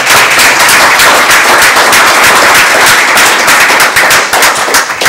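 Room full of people applauding, loud and dense, thinning to a few scattered claps near the end.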